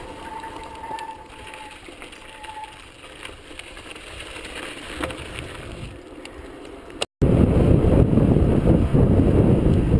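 Mountain bike rolling along a paved path, heard from a camera on the handlebars, with quiet rolling noise at first. After a brief cut-out about seven seconds in comes loud wind rushing over the microphone as the bike moves at speed.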